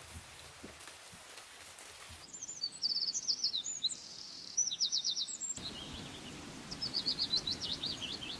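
Small birds singing: quick high chirps and rapid trills in repeated short phrases, starting about two seconds in after faint hiss. The background hiss changes abruptly twice, like spliced recordings.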